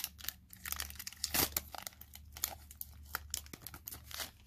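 Foil wrapper of a hockey card pack being torn open and crinkled by hand: a run of sharp crackles and rips, the loudest tear about a second and a half in.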